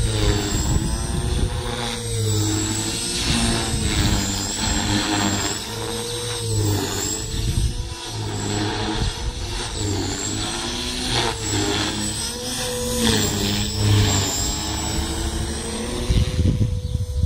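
HK450 Pro electric RC helicopter flying aerobatics: the high whine of its motor and rotor blades rises and falls in pitch again and again as it manoeuvres, over a low rumble.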